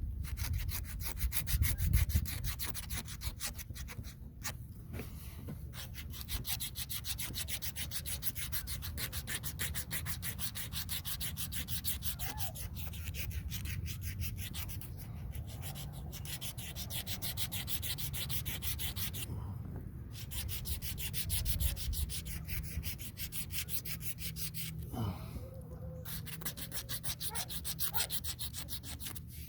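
An old razor blade scraping along a yellow boat power cord in rapid repeated strokes, with a few short pauses, shaving off the sticky, gummy surface that the aging cord has developed.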